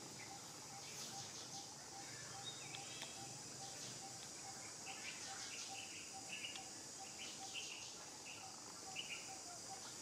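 Forest ambience: a steady high drone of insects, with an evenly repeated short note and bursts of bird chirps between about five and nine seconds in.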